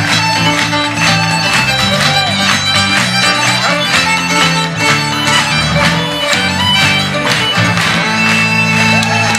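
Live Celtic and French-Canadian folk band playing a dance tune: fiddle lead over a steady strummed beat and bass. The beat stops about eight seconds in and the band holds a final chord.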